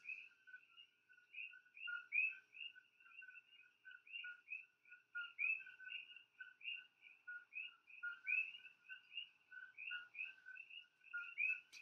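Faint chorus of coqui frogs calling, many overlapping short chirps at two pitches, the higher notes sliding upward.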